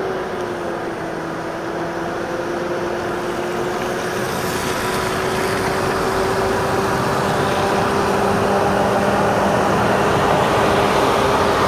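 Heavy truck diesel engine running with a steady drone, slowly growing louder as the truck comes closer at low speed.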